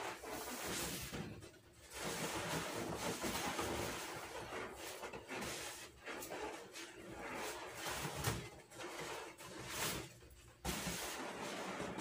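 Inflated latex balloons rustling and rubbing against one another and against hands as a cluster is handled, in irregular bursts with a few brief pauses.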